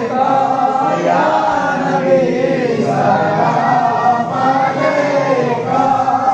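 A group of men and boys chanting a melody together in unison, with held, wavering notes and no break.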